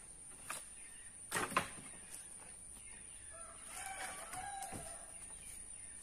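Logs knocking together twice in quick succession about a second and a half in as they are shifted on a woodpile. A rooster crows faintly from about halfway through.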